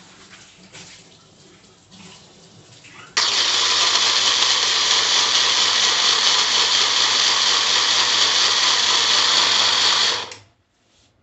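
Electric mixer grinder blending liquid in its jar. It switches on suddenly about three seconds in, runs loud and steady for about seven seconds, then is switched off and winds down near the end. Before it starts, light handling clatter of the jar.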